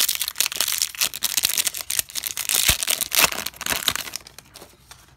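Trading card pack's foil wrapper being torn open and crinkled by hand: a dense crackling full of small clicks that dies down about four seconds in.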